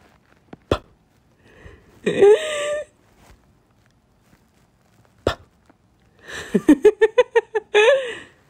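Siamese cat vocalising: a short call that bends up in pitch about two seconds in, then, near the end, a rapid stuttering chatter of about eight short chirps a second running into a longer call. Two sharp clicks, a little under a second in and about five seconds in.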